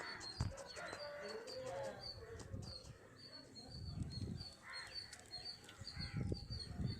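Birds calling: a steady run of short, high chirps, about two or three a second, with other bird calls over the first two seconds. A few dull low thumps come through around the middle and near the end.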